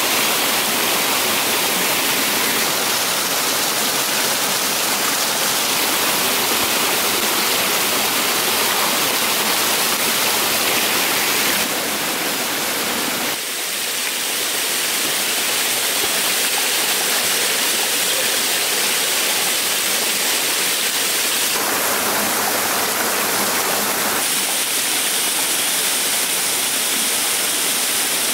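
Water rushing and splashing over rocks in a small stream cascade, a steady loud rush that changes tone abruptly a few times, with a brief dip about halfway through.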